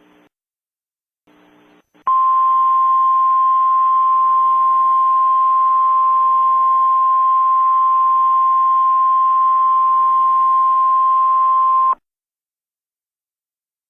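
Weather-radio Emergency Alert System attention tone: one loud, steady single tone at about 1 kHz over faint radio hiss. It starts about two seconds in and cuts off suddenly after about ten seconds. A little faint hiss and a brief silence come before it.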